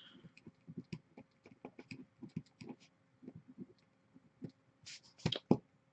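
Faint, irregular key clicks of typing on a computer keyboard, with a few louder taps near the end.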